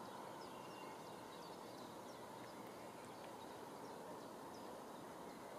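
Quiet outdoor ambience: a faint steady background rush with scattered faint bird chirps.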